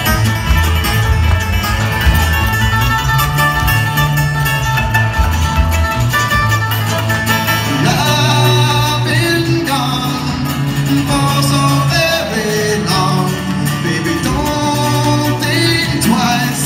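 Live bluegrass string band playing loudly through a venue sound system: strummed acoustic guitar, banjo and cello, with singing.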